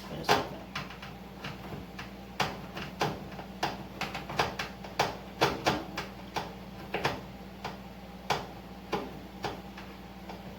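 Irregular sharp clicks and knocks of kitchen utensils, about two a second, over a steady low hum.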